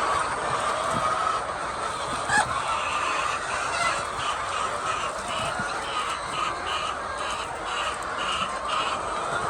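A flock of laying hens clucking and calling together in a steady din, with one sharp click about two and a half seconds in. In the second half a high, short note repeats about two or three times a second.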